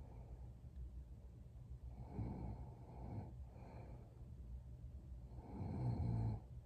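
A sleeping woman breathing and snoring: a couple of soft breaths in the middle, then one louder snore near the end.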